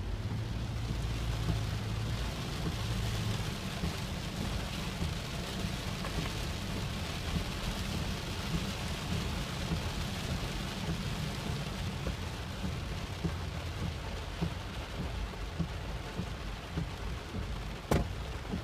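Floodwater rushing in a flash flood: a steady, deep rushing noise with a broad hiss over it. A single sharp click comes near the end.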